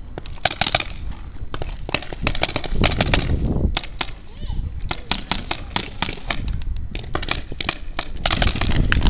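Paintball markers firing: sharp pops, some single and some in quick strings, over a low rumble of wind on the microphone.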